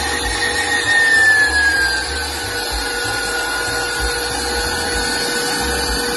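Electric stand mixer running at speed, its wire whisk beating egg whites and sugar into meringue in a stainless steel bowl: a steady motor whine over the whir of the whisk, dropping slightly in pitch about two seconds in.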